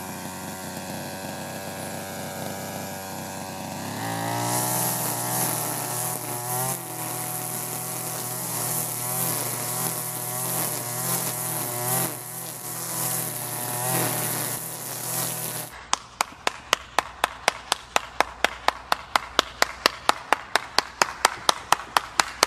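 Two-stroke brush cutter engine running steadily, its pitch wavering a little from about four seconds in. About sixteen seconds in it gives way to a fast, even ticking beat, about four or five ticks a second.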